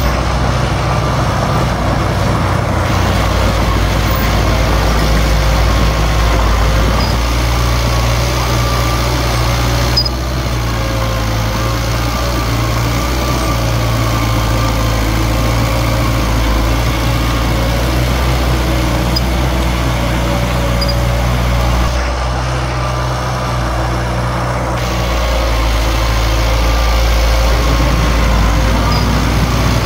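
Diesel engine of a D21P bulldozer running steadily while it works, its note stepping up and down a few times as the throttle or load changes.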